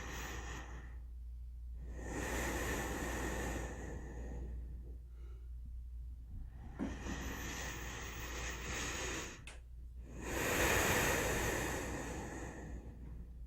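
Slow, calm human breathing: long, even breaths in and out, each lasting two to three seconds, with short quiet gaps between them.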